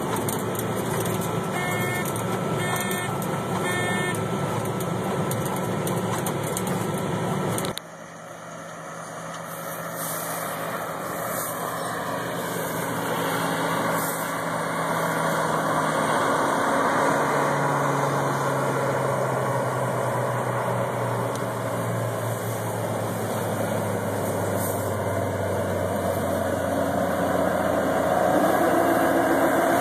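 Steady engine and machinery noise from a John Deere 9660STS combine cab, with a few short electronic beeps about two to four seconds in. After an abrupt cut near eight seconds, an engine runs steadily, its pitch sinking slowly over the following seconds.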